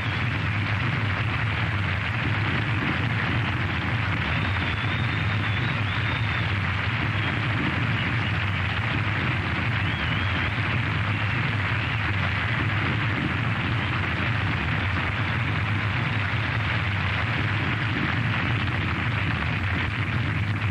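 Steady roaring rumble of a nuclear explosion, an even wash of noise with a low hum beneath, unchanging throughout.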